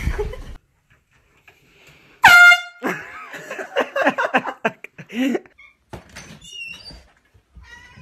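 One short, loud air horn blast of about half a second, a little over two seconds in, followed by a child's voice for a couple of seconds.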